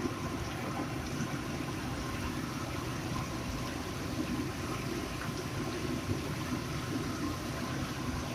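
Food frying in hot oil in a pan: a steady bubbling sizzle with small scattered crackles over a low hum.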